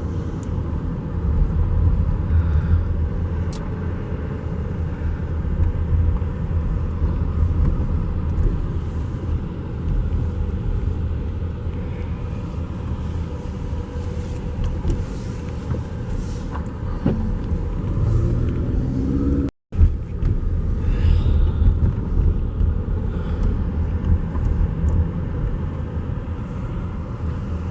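Car rumbling along a rough, flood-damaged road, engine and tyre noise heard from inside the cabin, with a few faint knocks. The sound cuts out completely for a split second about two-thirds of the way through.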